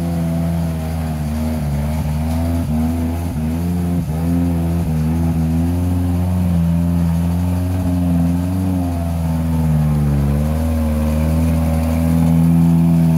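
Engine of a modified Suzuki Jimny off-road 4x4 revving up and down under heavy load as it claws up a steep muddy climb, with a few knocks in the first few seconds.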